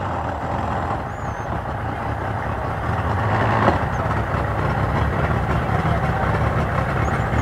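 Mercury 250 outboard motor idling in gear as the boat eases away from the dock, a steady low hum that grows slightly louder about three seconds in.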